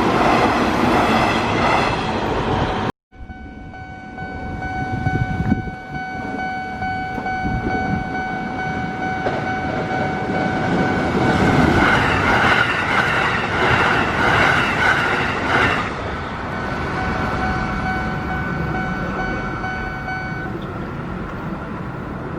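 Japanese railway level-crossing warning bell ringing steadily, an electronic tone, while a Sanyo Electric Railway train rumbles through the crossing, loudest in the middle. The bell cuts off near the end, leaving road-traffic noise. An abrupt break about three seconds in.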